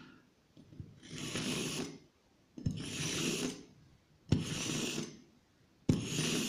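Kitchen knife blade pulled repeatedly through a disc knife sharpener with eight high-carbon steel discs, sharpening the edge: four strokes of metal-on-metal scraping, each lasting about a second and coming about every second and a half. The later strokes start with a sharp click as the blade enters the discs, and the last begins near the end.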